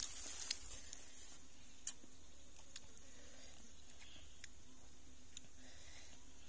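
A few light, sharp clicks and taps from a small knife cutting and scraping food held in the hand, the loudest about two seconds in, over a faint steady hiss.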